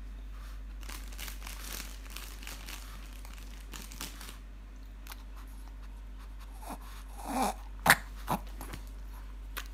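Shih tzu chewing bread, with many small crunching and mouth sounds. About eight seconds in comes a single sharp snap, the loudest sound, followed by a smaller one, as the dog snaps at a piece of bread held above its head.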